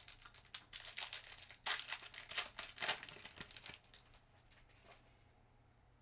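Trading card pack's foil wrapper crinkling and tearing as it is opened, a rapid run of crackles that dies away about four seconds in.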